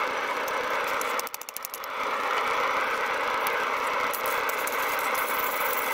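A steady machine hum with a faint constant whine, over which a wire brush scrubs scale off a hot steel plate held in tongs, a few scratchy strokes in the second half.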